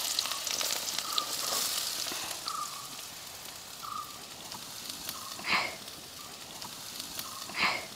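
Chopped red onions sizzling in hot oil in an aluminium kadai, the sizzle slowly dying down as they settle. Faint short chirps come and go in the background, and two brief louder crackles sound about halfway and near the end.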